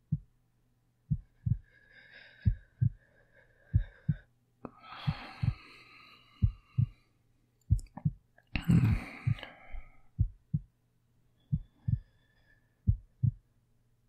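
Slow heartbeat: paired lub-dub thumps, one pair about every 1.3 seconds, over a faint low steady hum. Soft breathing is heard twice in the middle.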